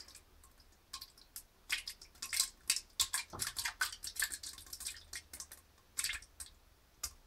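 Rice pudding pouring from a tin into a toilet bowl, landing in the water with a run of irregular small plops and splatters. They start about a second in and come thickest in the middle.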